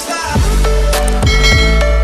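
Electronic intro music: a heavy bass line drops in just after the start, with a steady drum beat and held synth notes.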